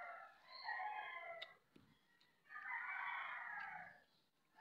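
A rooster crowing: one crow trailing off in the first second and a second, longer crow from about two and a half seconds in, with a single light click between them.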